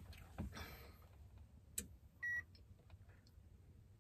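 Portable induction cooktop giving a single short high beep as its control is pressed, about two seconds in, just after a light click.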